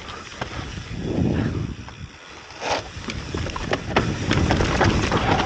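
Mountain bike riding down a rocky dirt trail: tyres rolling over dirt and stones, with many short knocks and rattles from the bike over the bumps and wind rushing over the microphone. It gets louder about halfway through.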